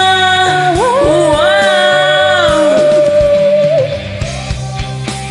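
Malay rock ballad backing music with a long held sung note that ends under a second in. A lead melody with sliding, bending notes follows over bass and drums, and the music drops quieter near the end.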